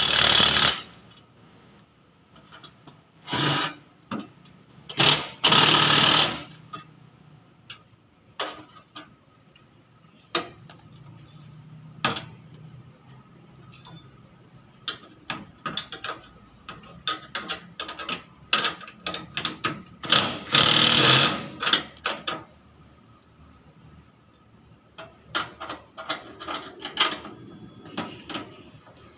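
Impact wrench running in about five short bursts as it drives the bolts that hold an air-conditioner outdoor unit to its wall bracket, with small clinks and knocks of tools and metal parts between the bursts.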